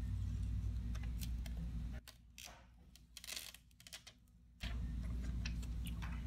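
Steady low electrical hum with scattered light clicks and ticks of small parts and tools being handled. From about two seconds in, the hum cuts out abruptly for about two and a half seconds, leaving faint hiss, then returns just as suddenly.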